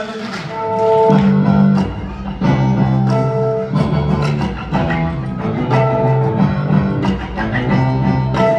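Instrumental music with plucked strings over held bass notes and a short melodic figure that repeats every couple of seconds.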